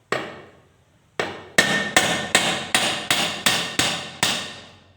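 Hammer blows, about ten: one at the start, then after a pause a quick series of roughly three strikes a second, each ringing briefly before the next.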